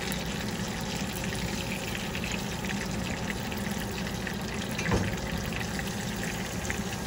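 Breaded chicken cutlets frying in shallow oil in a skillet, a steady sizzle full of small crackles, with a single sharp knock about five seconds in.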